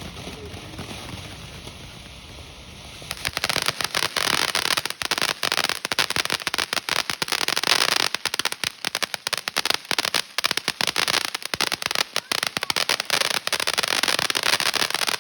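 A consumer firework going off in a rapid, dense run of crackling pops. It starts about three seconds in, lasts about twelve seconds and stops suddenly.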